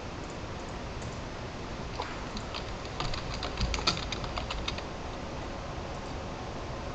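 Computer keyboard being typed on: a run of quick keystrokes from about two seconds in until nearly five seconds, over a faint steady hiss.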